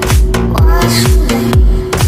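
Electronic dance music with a steady kick drum at about two beats a second and a pitched melody over it.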